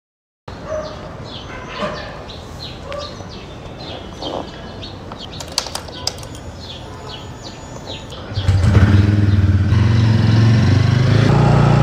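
Birds chirping, then about eight seconds in the TVS Ronin 225's single-cylinder engine starts and settles into a steady, much louder idle.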